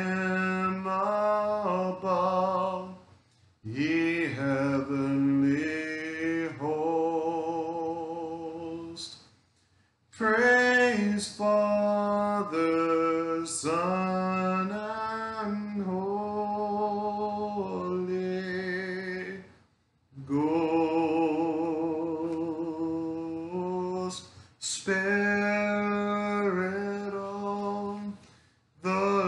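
A man singing a slow hymn a cappella, long held notes with vibrato, in phrases broken by short pauses for breath.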